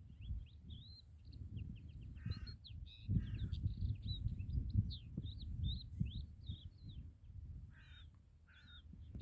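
Outdoor birdsong: small birds chirping quickly and continuously, with four short harsh caws, two a few seconds in and two near the end, over a low fluctuating rumble.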